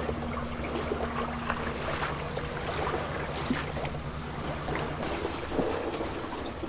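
Sailboat underway at sea: water rushing and sloshing along the hull over a steady low drone, with scattered small clicks and creaks.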